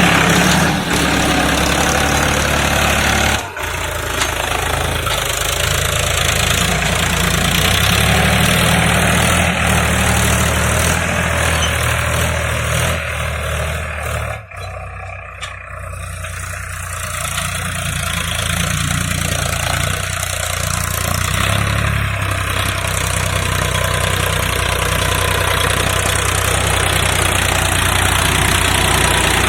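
Tractor diesel engine running steadily under ploughing. Its sound drops away briefly about halfway through, then builds back up.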